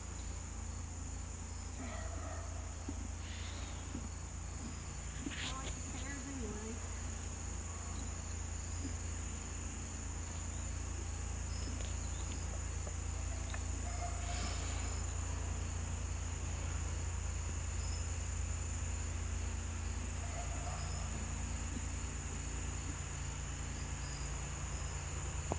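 Steady high-pitched chorus of chirping insects, with a few faint knocks and rustles over it.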